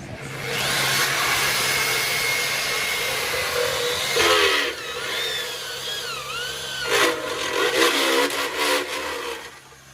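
Electric hand drill running under load, boring a hole through the tricycle body to pass a wire. It starts about half a second in, surges louder around the middle and again later, with a whine that bends up and down, and stops shortly before the end.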